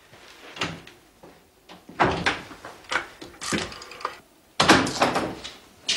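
Door noises: a few thuds and clunks, then a louder clatter about four and a half seconds in as a door opens.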